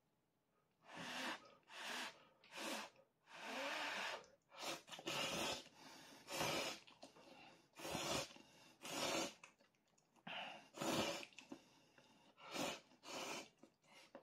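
A person slurping instant ramen noodles from the pot: a long run of sharp, airy slurps, a dozen or more, each under a second long, starting about a second in.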